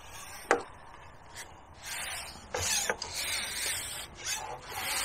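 Rubbing and scraping from a carbon fishing pole being handled while a hooked fish is played, with a sharp click about half a second in and several rustling bursts after two seconds.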